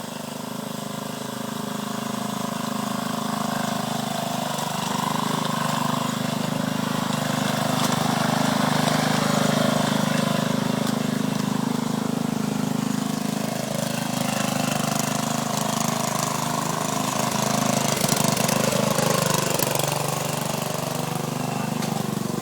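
Lawn mower engine running steadily, growing louder over the first several seconds and then holding at a steady level.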